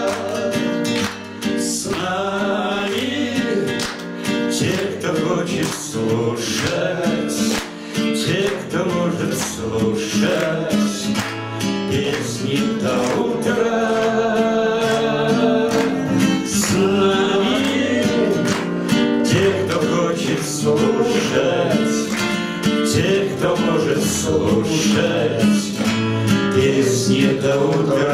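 Two men singing a bard song together to a strummed acoustic guitar.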